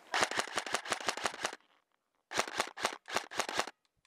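KWA AEG3 airsoft electric rifle firing on full auto, rapid sharp clicks at about ten shots a second: one burst of about a second and a half, then three short bursts in quick succession.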